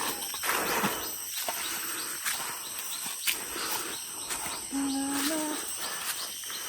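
Footsteps and rustling on a hillside path during a walk, with a steady high-pitched drone throughout and a brief voice, a held tone, about five seconds in.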